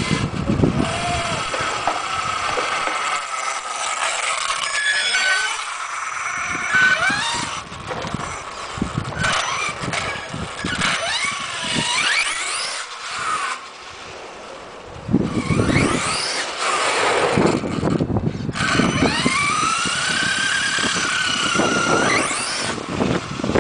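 Radio-controlled 6x6 monster truck with a brushless electric motor, its high whine rising and falling in pitch again and again as it speeds up, slows and passes, over the noise of tyres on asphalt.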